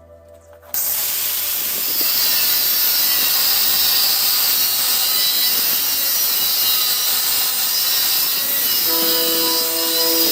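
Abrasive chop saw cutting steel: a loud, steady, hissing grind that starts abruptly about a second in and runs on, with background music returning near the end.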